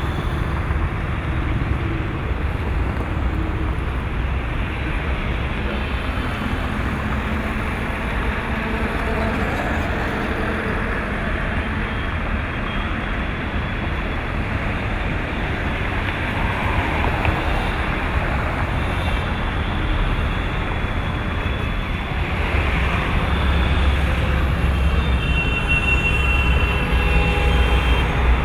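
Steady road-traffic noise: a continuous rumble of engines and tyres that grows a little louder in the last few seconds, with faint high tones near the end.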